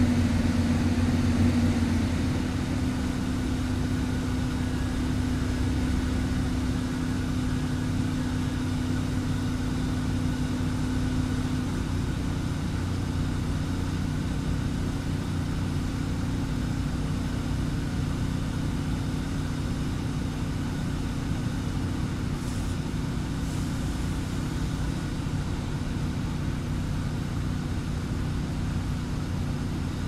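Water cannon truck running steadily, a low, even engine drone with no change in speed.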